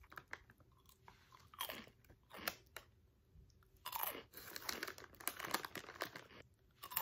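A person biting and chewing a crunchy orange snack close to the microphone: irregular crunches in a few short runs, busiest and loudest from about four seconds in.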